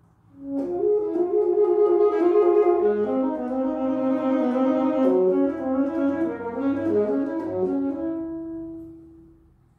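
Saxophone playing a melodic phrase of pitched notes, starting about half a second in and ending on a long held note that fades away near the end.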